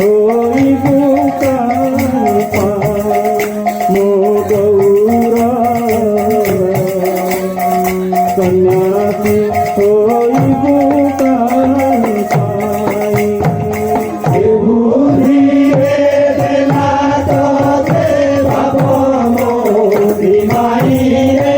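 Kirtan music between sung verses: a held, slowly moving melody over regular drum strokes and rattling percussion, growing fuller about fifteen seconds in.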